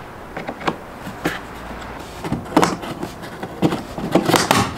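Irregular plastic clicks and knocks, a few early and a denser cluster in the last couple of seconds, as parts are pressed and snapped into a Fiat Ducato's exterior mirror housing.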